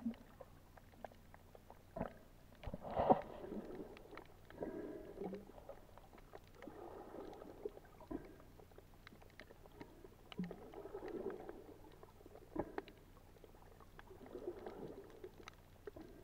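Muffled underwater water noise as a swimmer moves through shallow sea water: a gurgling swell of water sound comes and goes every few seconds, with scattered faint clicks between.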